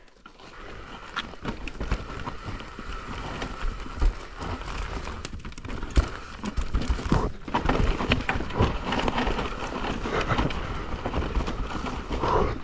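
Mountain bike riding down rough rock, with tyres grinding on the stone and the bike rattling and knocking sharply again and again over a low rumble.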